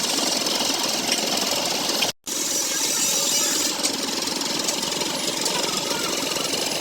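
Steady, rapid mechanical rattle from a running machine, with a brief dropout about two seconds in.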